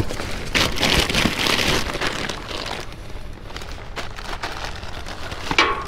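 Rustling and crackling of bags, boxes and trash being handled and rummaged through, with many small clicks and knocks, loudest in the first couple of seconds.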